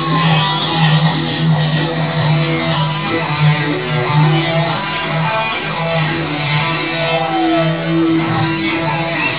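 Electric guitar music: sustained notes ringing over a steady low note, with one note sliding down in pitch about seven seconds in.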